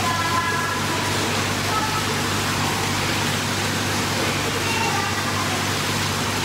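Steady rushing background noise of an indoor swimming pool hall, like running water, over a low steady hum.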